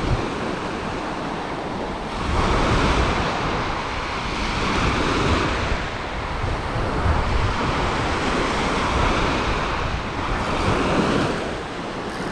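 Gulf surf breaking and washing up the sand at the shoreline, swelling and ebbing as the waves come in, with wind buffeting the microphone.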